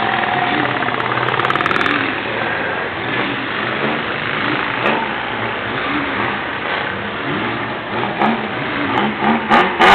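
Car engines running steadily, their pitch rising and falling a little.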